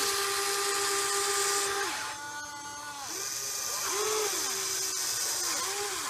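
Huina 580 RC toy excavator's small electric motors whining as the boom and bucket move: a steady whine for about two seconds, a lower, quieter stretch, then short whines that rise and fall in pitch as the motors start and stop.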